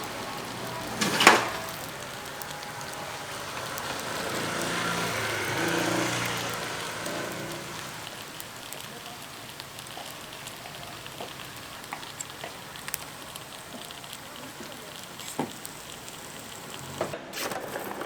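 Batter sizzling in the iron fish-shaped molds of a bungeoppang grill, a steady crackling hiss. A loud sharp clank comes about a second in, and light clicks follow later.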